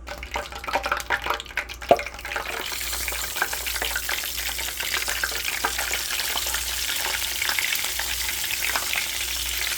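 Seasoned chicken wings frying in hot oil: sharp crackling pops for the first couple of seconds, then a steady, dense sizzle.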